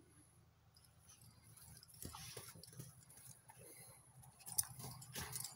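Dog biting and shaking a plush stuffed toy: faint chewing and rustling, with a few louder ticks near the end.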